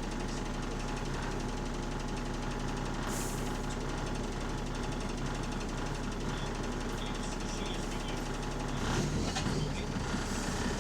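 Bus diesel engine running with a rapid, steady puffing beat from a leaking exhaust. Near the end it grows louder and rougher as the bus begins to pull away.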